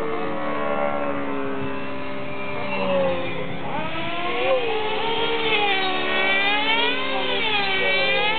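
Radio-controlled model helicopter manoeuvring in flight: its motor and rotor whine glide up and down in pitch, swinging more widely from about halfway through.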